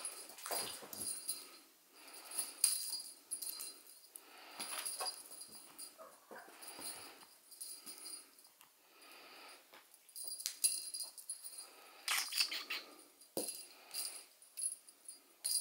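Siberian kittens scuffling and pouncing on a fabric-covered sofa, in irregular bursts of rustling, while a small bell on a feather teaser toy jingles in short runs.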